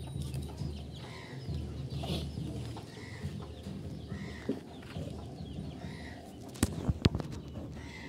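Farmyard sounds: short animal calls repeating about once a second over a low rumble, with two sharp knocks near the end.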